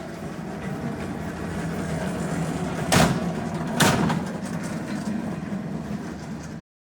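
A steady machine hum that slowly grows louder, with two loud knocks a little under a second apart midway, then cuts off abruptly.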